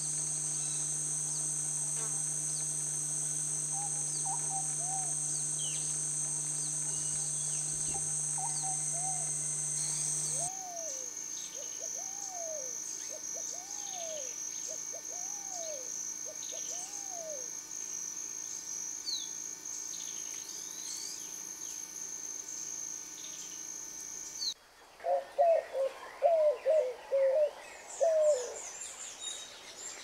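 A wild pigeon cooing: a series of about five low coos, each rising and falling, over a steady high insect drone. After an abrupt change near the end comes a dove's louder song of quick, broken hoots, with a few high chirps from other birds.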